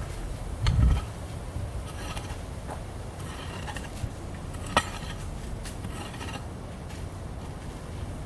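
Outdoor wind noise on the microphone, with a stronger gust about a second in and a few scattered sharp clicks.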